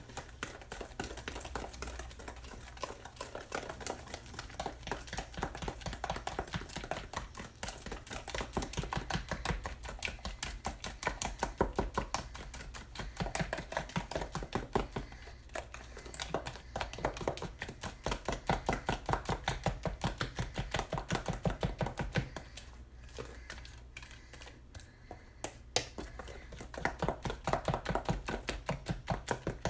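Rapid, rhythmic clicking of a utensil beating cornbread muffin batter in a bowl, several taps a second, easing off briefly twice.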